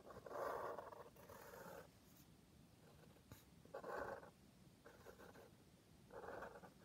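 Marker pen tip drawn across paper in five short strokes, each under a second, with pauses between them.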